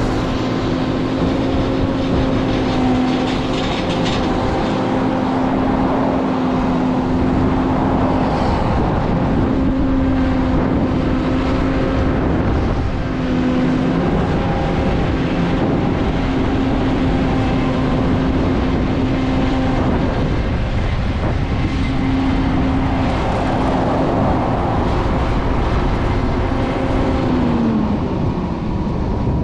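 John Deere 9500 combine harvesting corn: its turbocharged six-cylinder diesel and threshing machinery running steadily under load with a constant whine, which slides down in pitch near the end.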